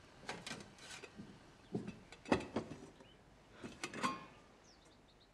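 Kitchen clatter: a scattered series of light knocks and clinks of crockery and utensils, a couple ringing briefly.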